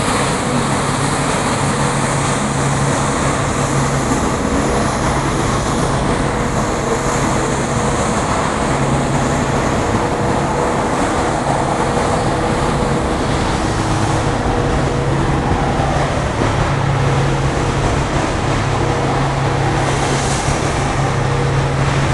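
Steady vehicle engine hum over a constant wash of city street noise.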